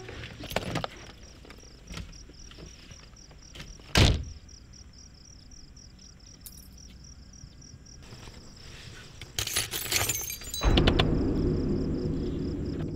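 A car door shuts with a single loud thunk about four seconds in, over a faint steady chirping of crickets. A few clicks follow near the end, then a louder steady low sound sets in.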